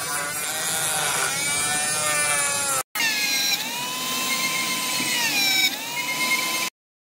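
Ingco 130-watt mini grinder (rotary tool) running at high speed with a steady whine, its pitch sagging and recovering several times as the bit bites into PVC pipe. There is a brief break just under three seconds in, and the sound cuts off suddenly near the end.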